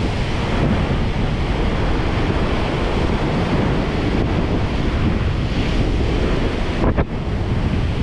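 Gale-force wind buffeting the microphone over the rush of breaking sea waves, with a short lull about seven seconds in.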